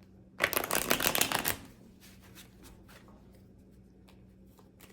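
A deck of tarot cards being shuffled: a quick, loud run of rapid card flicks about half a second in, lasting about a second, followed by a few faint card taps.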